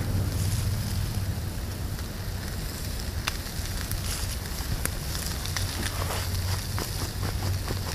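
Wood fire in a small titanium gasifier stove, crackling with scattered sharp snaps, more often in the second half, under the hiss of bacon frying in the pan on top. Wind rumbles steadily on the microphone.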